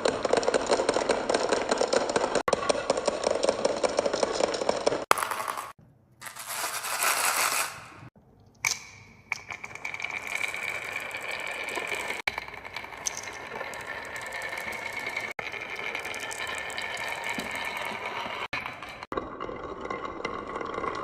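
Many marbles rolling and clattering down a wooden marble run, a dense rattle of small clicks and knocks that breaks off abruptly a couple of times.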